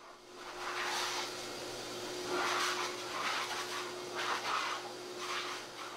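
High-velocity pet dryer blowing air through its hose nozzle: a steady rushing blast with a constant hum underneath, surging louder several times.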